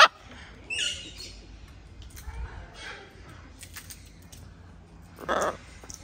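A blue-and-gold macaw giving short, harsh squawks: one at the start, another about a second in, and a louder one about five seconds in.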